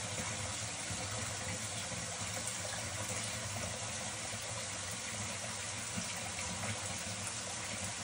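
Water running steadily from a water heater's drain valve into a sump crock as it fills, a constant rushing splash.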